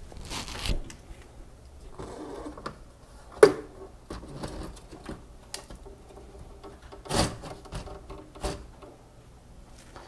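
An M&S intercom head unit's panel being handled and lowered from its wall box: a few knocks and clicks with some rustling of wires, the sharpest knock about three and a half seconds in.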